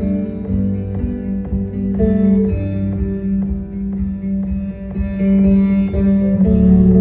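Live band music with no singing: acoustic guitar picking a steady pattern over held bass notes. About six and a half seconds in, the low end swells fuller as the band builds.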